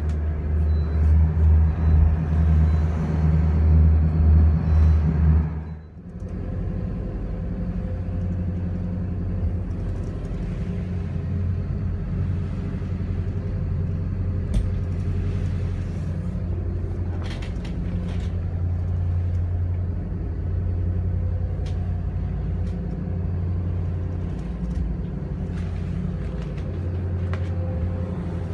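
Steady low drone of a 74-foot power yacht's engines running under way, heard from inside the wheelhouse. About six seconds in it breaks off and comes back a little quieter and steady.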